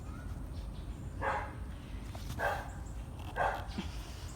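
A dog barking three times, short single barks spaced about a second apart.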